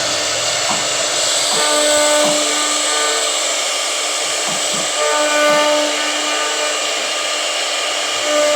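CNC router spindle running at high speed and cutting wood: a steady loud whirring hiss with a pitched hum whose tone drops out and comes back several times.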